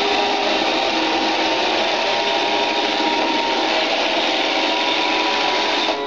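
Roomba 580 robot vacuum running: a steady whir of its vacuum motor and brushes with a few steady tones, stopping near the end.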